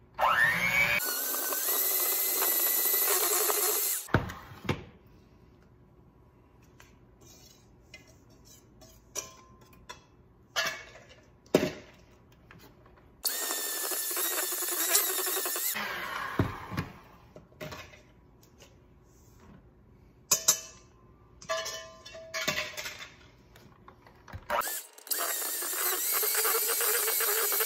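Electric hand mixer running in three bursts of a few seconds each, its beaters churning batter in a stainless steel bowl; the motor spins up with a rising whine at the first start. Scattered knocks and clinks fill the pauses between bursts.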